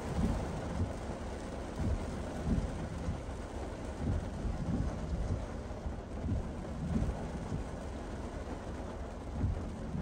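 Heavy typhoon rain pelting a moving car, heard from inside the cabin as a steady hiss and patter. Low thuds come in pairs every couple of seconds.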